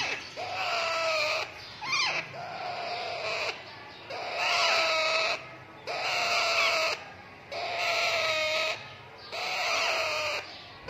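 Parrot chicks calling over and over, each call lasting about a second and coming back after a short pause, about seven times.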